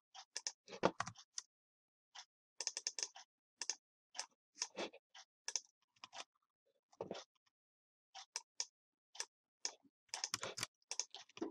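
Computer keyboard keys and mouse buttons clicking: short taps in irregular clusters, with a quick run of keystrokes now and then and silent gaps between.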